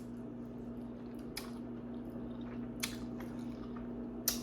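A person chewing noodles close to the microphone, with a few short wet mouth clicks, over a steady low hum.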